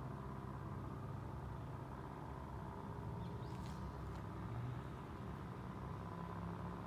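Faint, steady outdoor background rumble, with a few brief, sharp high-pitched sounds about three and a half seconds in.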